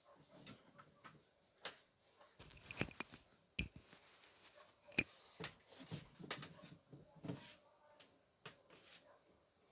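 Irregular knocks, clicks and scuffing as a rack power amplifier and its mains cable are handled and moved, with two sharp clicks about three and a half and five seconds in.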